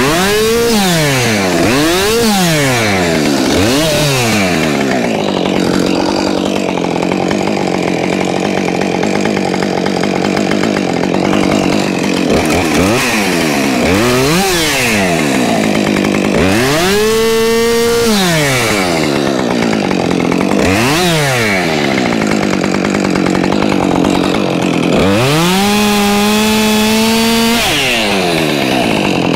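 Two-stroke chainsaw being worked through wood. It is revved in quick rises and falls at first, then held down under load in a long cut. Near the middle and again near the end it is held at high revs.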